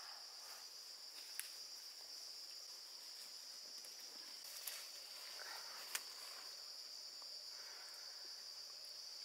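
Steady, high-pitched insect chorus, a continuous buzz, with three short sharp clicks: about a second and a half in, near the middle, and at about six seconds.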